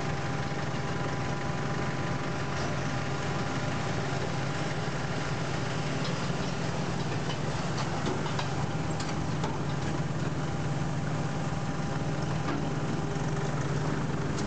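Diesel farm tractor engines running steadily, as a green John Deere tractor towing a wooden trailer drives past. There is some light rattling about halfway through, as it goes by.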